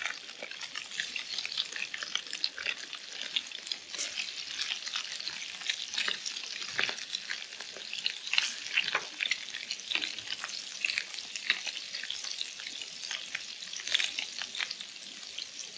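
Seasoned kahawai pieces frying in hot oil in a Trangia frying pan, with a steady crackling sizzle and sharper louder pops here and there as pieces are added and moved.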